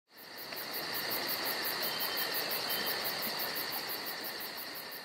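Insects chirping in a fast, even pulse of about seven a second over a steady hiss, fading in at the start and beginning to fade near the end.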